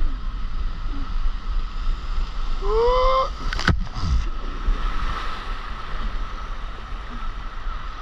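Rushing water and wind buffeting the microphone of a rider going down a water slide. About three seconds in there is a short rising yell, followed by a sharp knock.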